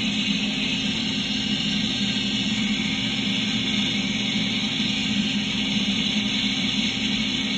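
Jeweler's rotary handpiece spinning a polishing wheel against a diamond-set gold grill, running steadily. It gives an even high hiss with a low hum underneath.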